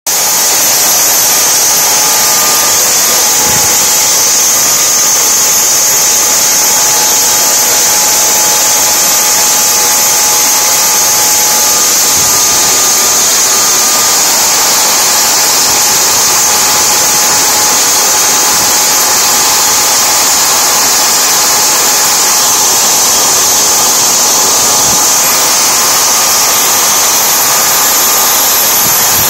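Tiernay small gas turbine engine running steadily at speed: a loud, even high-pitched whine and hiss with a thin, very high steady tone over it.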